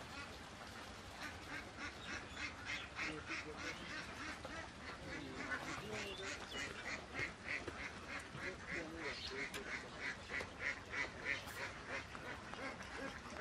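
A flock of ducks quacking faintly: a steady run of short calls, about three a second, starting about a second in.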